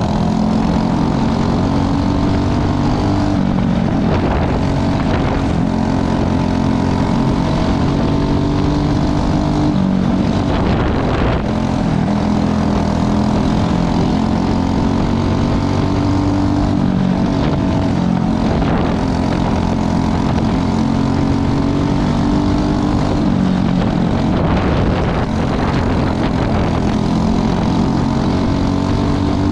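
Several Briggs & Stratton 206 single-cylinder four-stroke kart engines racing together, their overlapping pitches rising and falling as the karts go around the track.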